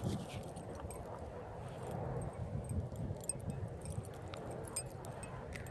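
Clothing rustling and small scattered clicks close to a shirt-mounted microphone as the angler moves, over a low rumble.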